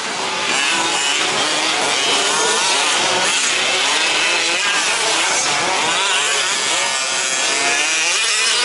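Several 1/5th-scale two-stroke petrol RC truck engines racing together, a high buzzing whose overlapping pitches keep rising and falling as the throttles open and close.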